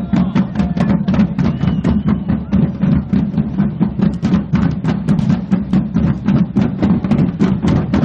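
Procession drums beating a fast, steady rhythm.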